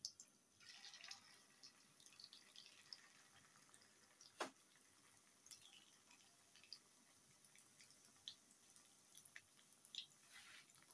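Faint crackling and popping of potato-coated chicken balls deep-frying in hot oil in a wok, with one sharper click about four and a half seconds in.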